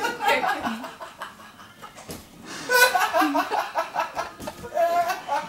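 A person laughing hard in fits. There is a short lull, then the loudest bursts of laughter come about three seconds in.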